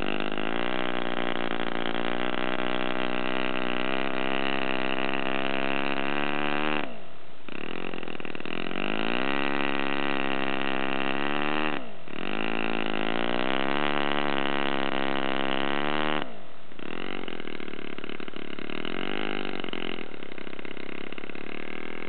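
Enya R1.20 single-cylinder four-stroke glow model engine running fast on a test stand, turning its propeller. Its pitch drops sharply and climbs back twice. After a third drop about two-thirds of the way through, it runs at a lower, slightly wavering speed.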